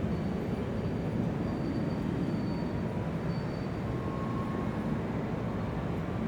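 Large airport exterior ambience: a steady low rumble with faint, thin whining tones that drift slightly in pitch.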